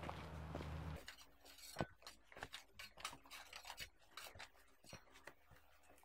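A steady low hum that cuts off about a second in, then faint scattered clicks and scrapes of loose rock fragments being picked through by hand.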